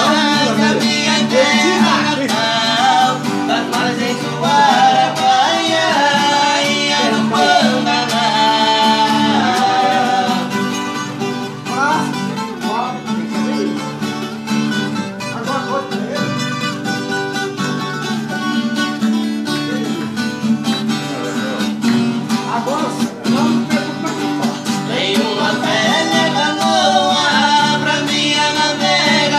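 Two acoustic guitars strummed together with a man singing along in Portuguese. The singing is strong at first, thins out for a stretch in the middle while the guitars carry on, and comes back strongly near the end.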